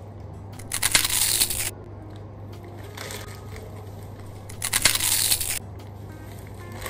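Crinkly plastic snack bag rustling as it is handled and tipped up to pour into the mouth, in two loud bursts about a second long each, near the start and about five seconds in.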